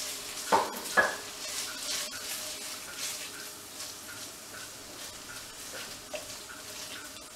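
A spatula stirring and scraping tomato puree and curry paste through softened onions in an enamelled pan, over a steady low sizzle of the paste frying. Two sharp knocks of the spatula against the pan come about half a second and a second in, and a lighter one near the end.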